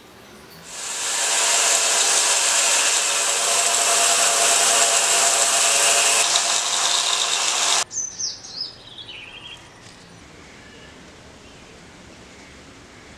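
Belt sander grinding a flat steel blade blank pressed against the running belt, a loud steady grinding hiss that cuts off suddenly about eight seconds in, followed by a short falling whine as the sander winds down.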